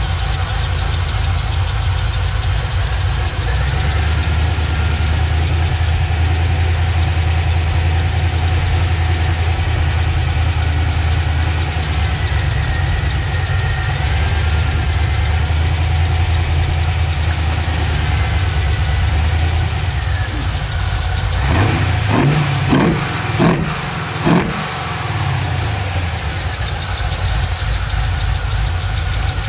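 GM LS-series V8 with individual throttle bodies running at a slightly raised idle while the throttle bodies are balanced side to side. A little over two-thirds of the way through, the throttle is blipped several times in quick succession, the revs rising and falling, before the engine settles back to an even idle.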